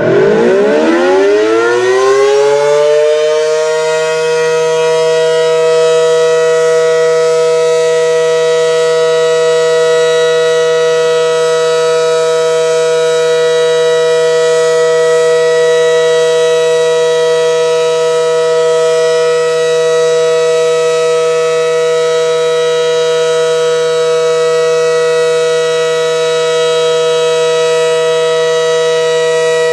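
ACA Allertor 125 electromechanical warning siren starting up: its pitch winds up over the first three or four seconds, then it holds a loud, steady chord of two main tones. The level stays even, without the rise and fall of a rotating horn, because the siren's rotator is broken and the horn stays fixed.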